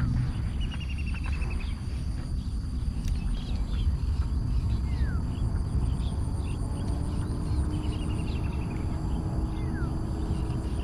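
Outdoor ambience: a low rumble of wind on the microphone, with birds calling (a falling trill of quick notes twice, and a couple of short falling whistles) over a steady high drone of insects.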